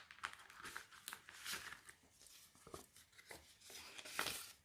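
Faint rustling of paper and card being handled, with a few light taps and clicks; the loudest rustle comes near the end.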